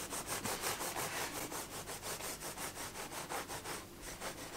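Long knife sawing back and forth through a baked chocolate sponge cake to slice off its top: a quick, even rasping of about five or six strokes a second that stops near the end.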